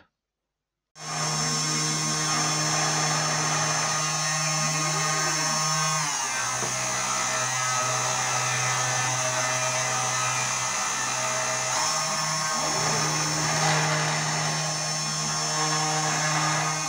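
Ortur Aufero desktop CNC engraver cutting into a wooden board: its spindle motor runs with a steady high whine while the bit carves. Under it a lower machine hum shifts in pitch twice as the carving head moves. It starts about a second in.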